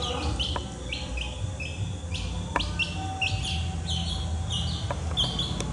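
Duckling peeping: a steady stream of short, high peeps, several a second and often overlapping, over a low hum with a few faint clicks.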